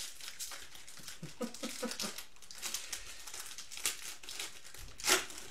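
Trading cards and their plastic wrapping being handled, a run of light crinkling and rustling with one louder, sharper crinkle about five seconds in.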